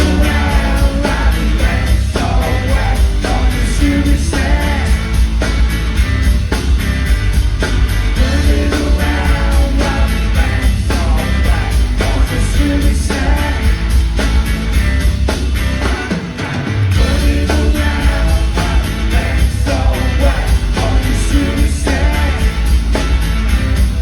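Live rock band playing loud through a concert PA, with a singer's vocals over drums, guitar and heavy bass. About two-thirds of the way through, the bass drops out for a moment and then comes back in.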